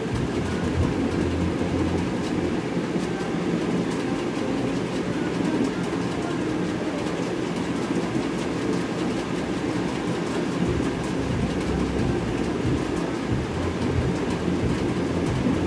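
Steady low rumbling noise with faint ticks, holding even throughout.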